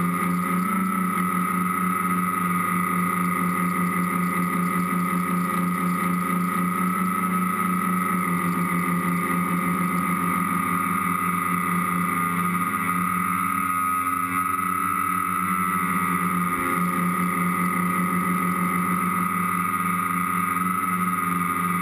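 A tricopter's three electric motors and propellers buzzing with a steady, high whine, heard close up from the camera on the aircraft. The pitch wavers slightly a few times as the throttle changes, most noticeably just past the middle.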